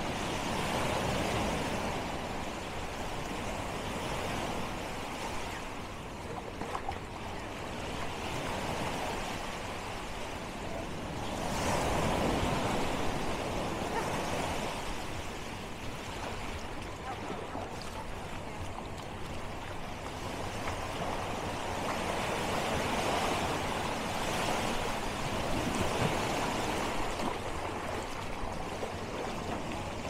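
Sea surf: waves breaking and washing in, the hiss of the water rising and falling in several slow surges, the loudest about twelve seconds in.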